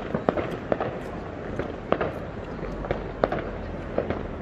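Fireworks going off: sharp bangs and pops at irregular intervals over a steady background of more distant bursts, the loudest bang about three seconds in.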